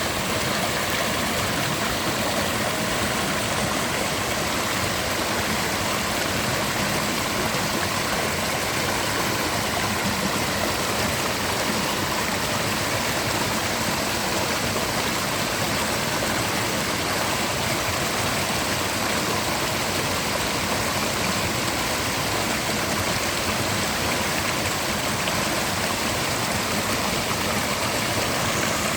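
Mountain river rushing over rocks: a steady, dense water noise with no change in level.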